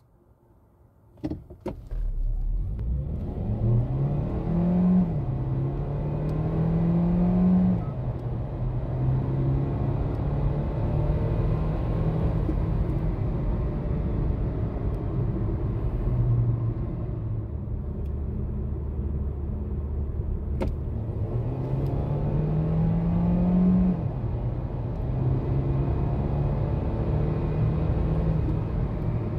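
Hyundai Kona hybrid's 1.6-litre four-cylinder petrol engine pulling hard under full throttle, heard inside the cabin over tyre and road noise. It starts from standstill with a rising engine note that drops back twice at gear changes of its dual-clutch gearbox, then runs steady at speed. Later a second hard pull rises and drops once more at a shift.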